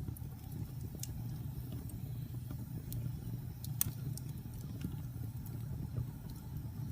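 Wood fire burning in a fireplace: a steady low rumble of the flames with scattered sharp crackles, one louder pop a little past the middle.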